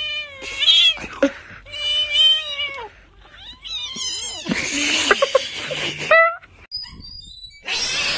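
Nursing mother cat yowling in a string of long, wavering calls, about four in the first four and a half seconds. A noisy stretch follows, and a loud, steady noisy sound starts near the end.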